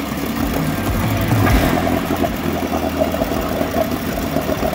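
Vintage 1959 Mercury Mark 55E two-stroke outboard with a Super Thunderbolt powerhead running with its lower unit in a water test tank, the water churning. It runs steadily, briefly louder about a second and a half in.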